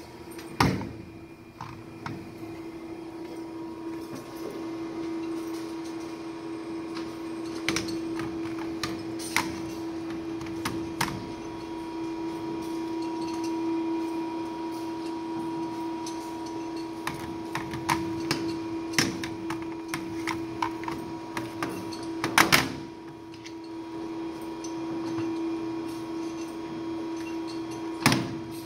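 Plastic cable boxes and routers being picked up, turned over and set down on a steel shredder top, giving scattered clicks and knocks, with sharp loud knocks about half a second in, twice around 22 seconds in, and near the end. A steady low hum runs beneath throughout.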